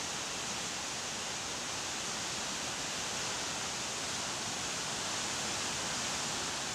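A river in flood rushing over rocks in white-water rapids, a steady, even sound of churning water.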